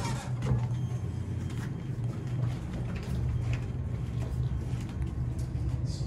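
Steady low hum of background machinery or ventilation, with a few faint footsteps as people walk out of the elevator onto carpet.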